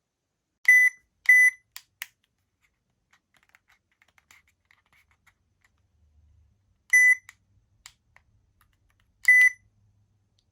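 Short electronic beeps from an infrared thermometer doorbell unit: two about half a second apart near the start, followed by a couple of sharp clicks, then single beeps about seven and nine and a half seconds in.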